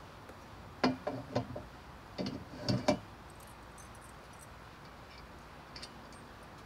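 Metal clinks and knocks from handling the parts of a Gorilla Carts dump cart during assembly, in two short clusters about one and two and a half seconds in.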